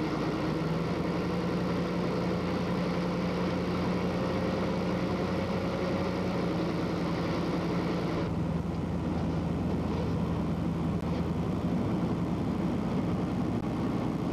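Military vehicle engine droning steadily while driving, with road and wind noise over it; the higher hiss drops away suddenly about eight seconds in.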